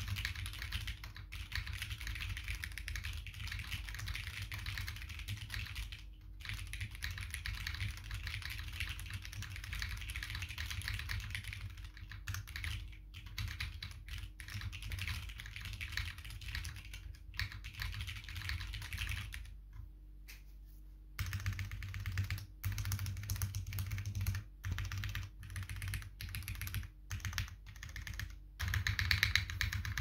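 Continuous typing on a custom 60% mechanical keyboard with lubed, broken-in Hyperglide MX Brown tactile switches, a polycarbonate plate and PBT keycaps, the switches giving a light scratch on each press. The typing stops briefly about twenty seconds in, then goes on. Recorded through a phone's built-in microphone.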